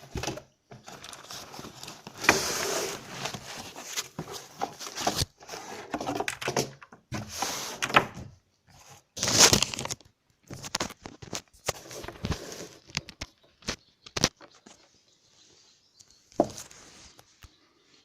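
Motospeed CK107 mechanical keyboard keys being pressed: irregular runs of clicks and clatter with short pauses, thinning to a few quieter clicks near the end.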